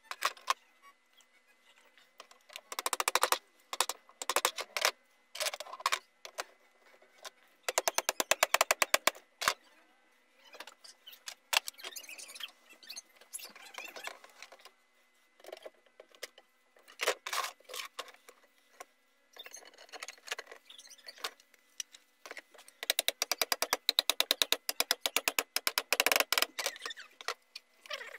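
Clicking and rattling of metal parts and hand tools while an electric planer is reassembled by hand, with several runs of rapid, evenly spaced clicks.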